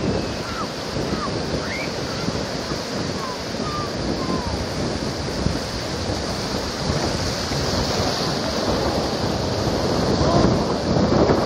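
Surf breaking and washing up the beach, with strong wind buffeting the microphone.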